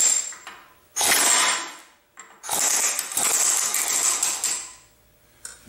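Pneumatic ratchet wrench run in three bursts, the last and longest about two seconds, with air hissing from the tool, backing out the drain plug at the base of a Quincy 325 compressor crankcase.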